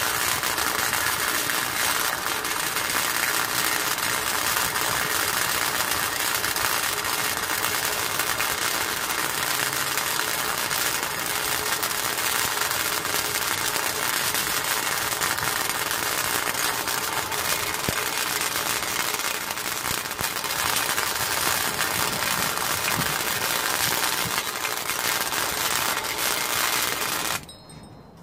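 Electric arc welder laying one long continuous bead on steel plate, a steady crackling buzz that starts abruptly and cuts off sharply near the end as the arc is broken.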